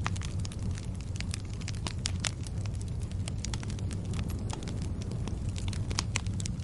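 Wood fire burning with a steady low rumble and irregular sharp crackles and pops, several a second.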